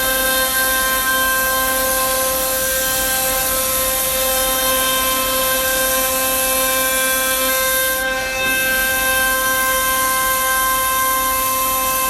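CNC router spindle cutting plywood, a steady high whine over a hiss of cutting, with a brief dip about eight seconds in.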